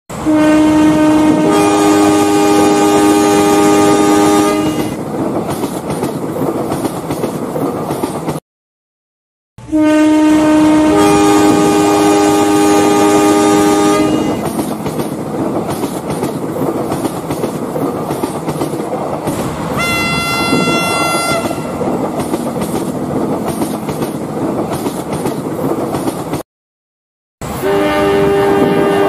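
Train horn sounding a chord of several tones for about four seconds, then again the same way after a brief silence, over the steady rumble and clatter of a train rolling on rails. A shorter, higher-pitched horn sounds about twenty seconds in.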